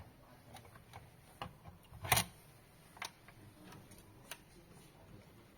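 Sparse light clicks and taps of small plastic parts being handled while the unit is taken apart, with a louder knock about two seconds in.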